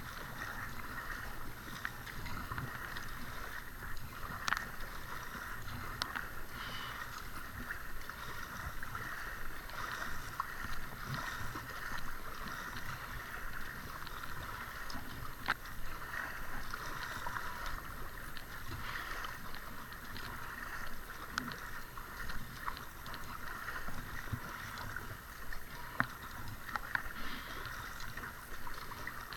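Double-bladed paddle strokes from an inflatable kayak: the blades dip and splash in the water with scattered clicks and knocks, over a steady hiss.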